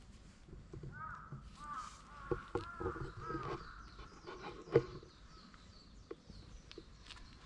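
A quick run of short, arching animal calls, about a second to three and a half seconds in, mixed with a few sharp knocks; the loudest knock comes near the middle.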